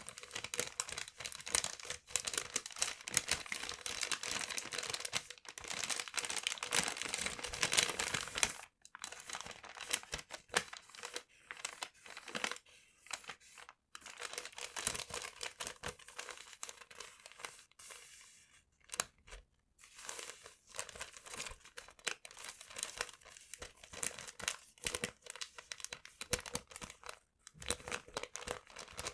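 Paper being crumpled and crinkled, with some tearing: dense, busy crackling for about the first nine seconds, then softer, more broken rustles with short pauses.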